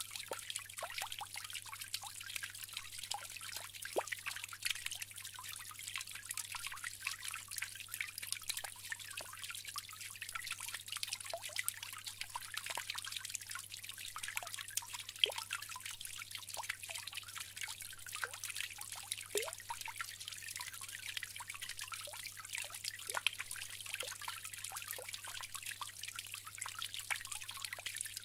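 Bamboo water fountain: a steady trickle of running water, with many small drips and plinks.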